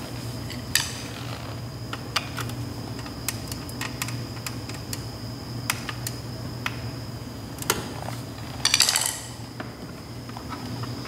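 Small sharp clicks and taps of a flathead screwdriver and wire ends worked into the screw terminals of a plastic solar charge controller, with a short rattle a little before the end. A steady low hum runs underneath.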